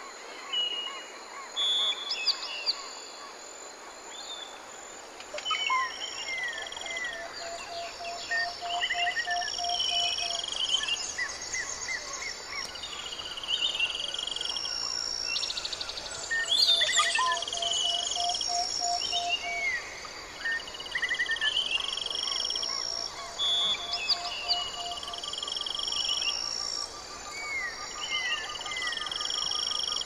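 Rainforest ambience: many birds calling together, with quick chirps, short whistled phrases and a lower rapid series of evenly spaced notes repeated now and then. A steady high insect buzz runs underneath.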